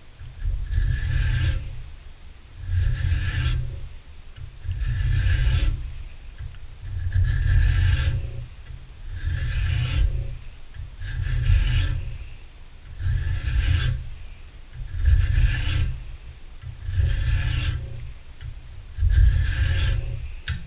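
Hand file drawn across a small leaded-steel keeper held in a bench vise: slow, even rasping strokes, about one every two seconds.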